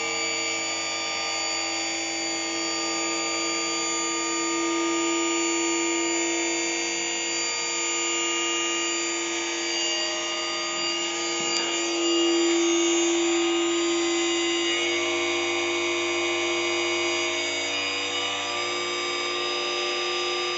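Scorpion HK-4025 brushless motor spinning steadily with a whine of several tones, slightly louder about twelve seconds in. It is held in its simulated fourth gear, where its programmed speed climbs slowly from about 3400 toward 5150 rpm.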